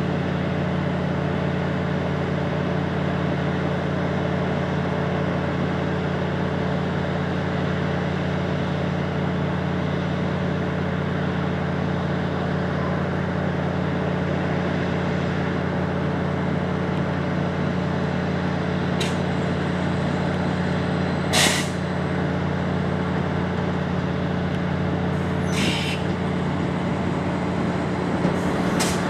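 Diesel multiple unit idling at the platform with a steady low drone, with short air hisses from its air brakes or pneumatics, the loudest about two-thirds of the way in.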